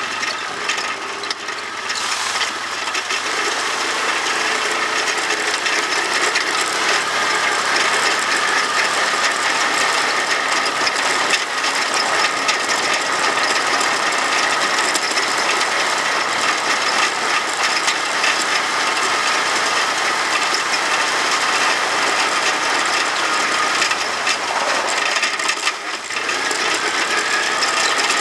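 Quad (ATV) under way on a rough trail: engine and drivetrain drone with a fast, steady mechanical rattle. The sound eases briefly near the end, then picks up again.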